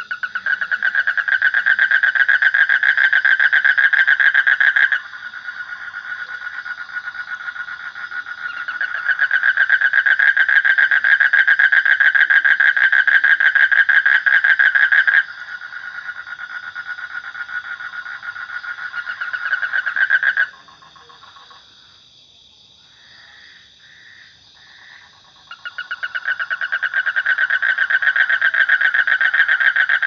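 Toads calling in long, rapid trills steady in pitch, loud trills alternating with quieter ones. About two-thirds of the way through the calling drops away except for three short notes, then a loud trill starts again near the end.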